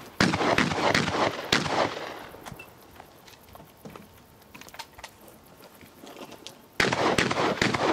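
Shotgun fire in a rapid string of shots for about two seconds, fading away, then a lull with a few faint clicks. A second rapid string of shots starts near the end.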